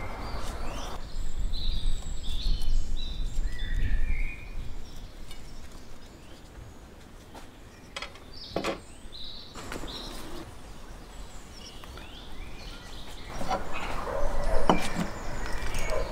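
Outdoor ambience: birds chirping over a low wind rumble on the microphone in the first few seconds, then a quieter stretch with a few light clicks, and a busier mix of knocks and rustling near the end.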